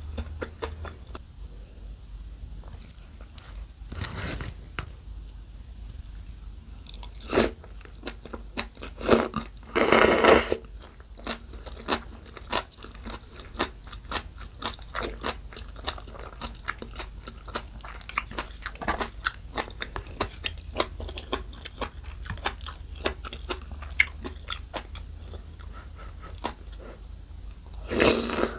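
Close-miked chewing of bean sprouts and noodles, with many small crunches and a few louder bursts, one as a spoonful is taken into the mouth near the end.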